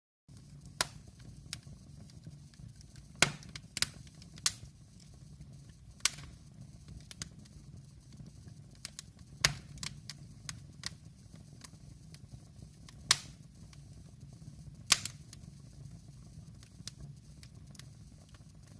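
Wood fire crackling in a fireplace firebox: irregular sharp pops and snaps, a few much louder than the rest, over a low steady hum.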